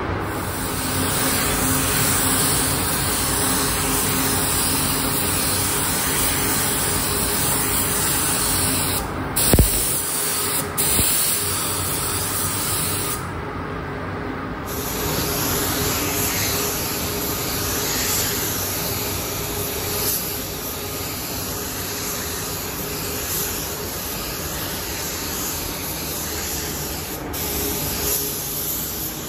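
Compressed-air spray gun hissing steadily as it sprays clear coat onto a motorcycle fuel tank, with a few brief breaks and a single short knock about nine and a half seconds in.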